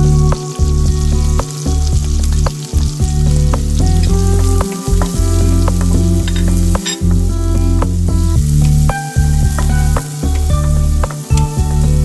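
Fried rice sizzling as it fries in a pan, a steady hiss, under background music with a regular bass beat.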